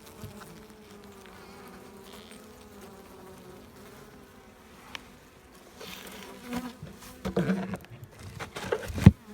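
Honeybees buzzing around an open hive as they feed on a supplement patty: a steady, slightly wavering hum. In the last few seconds there are some louder handling knocks, and a sharp thump near the end is the loudest sound.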